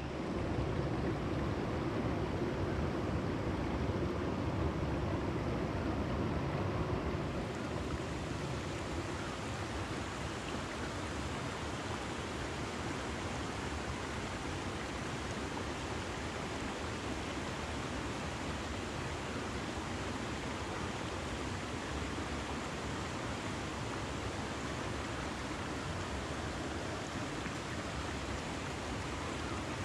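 Steady rushing of a small stream flowing over rocks, an even wash of water noise.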